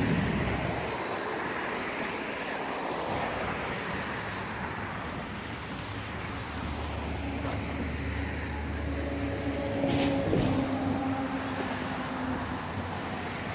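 Road traffic: a passing motor vehicle's engine hum swells, is loudest about ten seconds in, then fades, over a steady outdoor wash of distant traffic.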